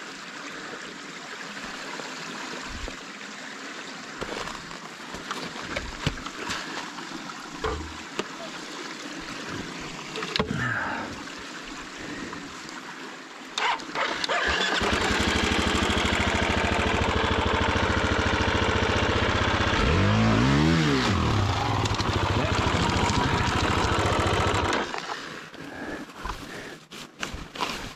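Dirt bike engine starting about halfway in and running steadily, revved up and back down once, then cutting out abruptly a few seconds before the end. Before it starts, only scattered knocks and handling noise.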